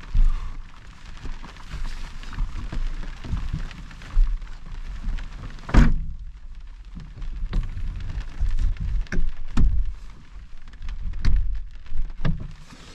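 Irregular thumps and knocks, the loudest about six seconds in, over a light hiss of heavy rain.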